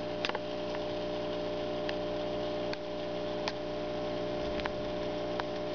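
Aquarium pump humming steadily, with a few faint clicks scattered through.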